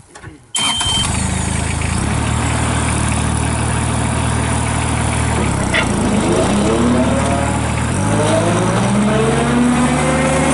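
Ditch Witch SK755 mini skid steer engine starting about half a second in, then running steadily. In the second half its pitch rises as it is revved up, with a step up near eight seconds.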